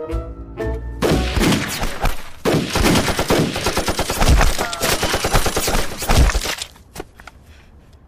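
Machine gun firing on full automatic in long, rapid bursts with brief breaks. It starts about a second in and stops near seven seconds, with a few stray clicks after. Plucked-string music is heard before the firing begins.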